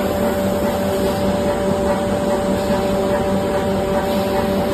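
Non-stop toilet tissue and kitchen towel rewinding machine running: a steady mechanical hum with several steady tones over a constant whir.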